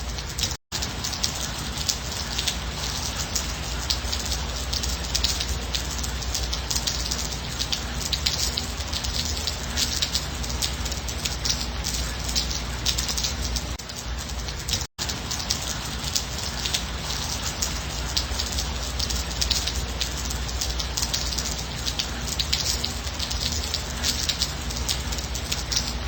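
Steady gentle rain, a dense patter of drops with no thunder. The sound cuts out completely for an instant twice, near the start and about halfway through.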